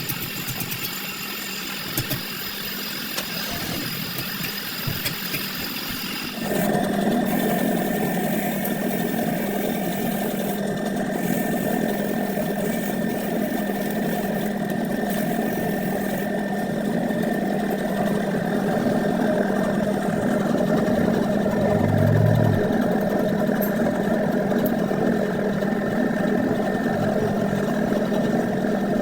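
A motor starts about six seconds in and runs steadily with a constant hum through the rest, after a quieter stretch of light clicks and clatter.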